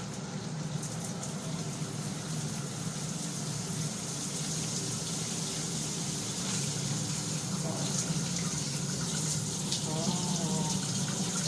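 Water running steadily from a newly installed shower head.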